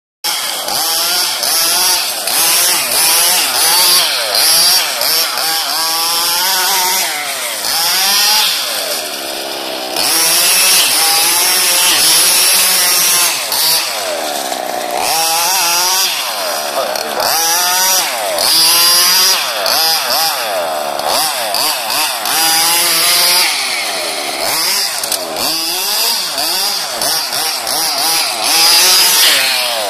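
28.5cc two-stroke petrol engine of an HPI Baja 1/5-scale RC buggy, revving up and down continuously as the car is driven. The pitch rises and falls every second or two, briefly easing off for a couple of seconds about eight seconds in.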